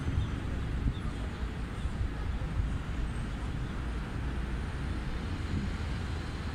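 Urban road traffic: cars running along a city street, a steady low rumble.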